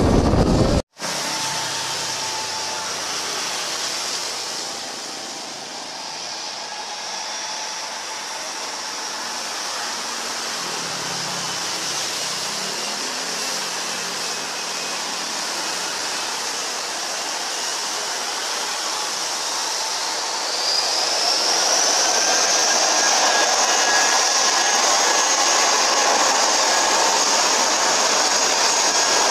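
Airbus A320-family airliner's jet engines whining as it moves along the runway. About 20 seconds in, a whine rises and the sound gets louder, as the engines spool up.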